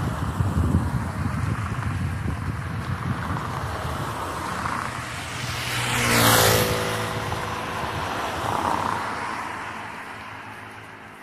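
Car driving past on the road, its engine and tyre noise swelling to a peak about halfway through and then falling away, with the pitch bending as it goes by. Wind rumbles on the microphone before it, and a second car passes more faintly later.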